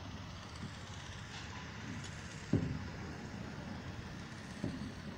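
Steady outdoor background noise with a low rumble, and a single dull knock about two and a half seconds in, with a smaller one near the end.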